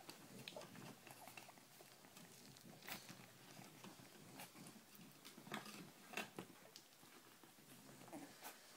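Faint, scattered small clicks and rustles of young Cavalier King Charles Spaniel puppies moving about on a blanket, with a few sharper ticks about 3 seconds and 5.5 to 6 seconds in.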